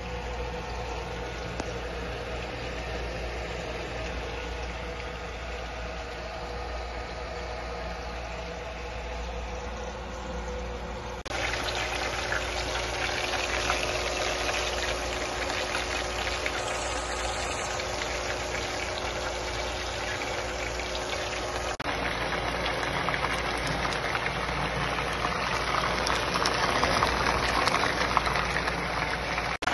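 A steady low hum with a faint hiss, then, after an abrupt cut about eleven seconds in, chicken pieces frying in a pan of oil: a louder, dense crackling sizzle that carries on through a second cut.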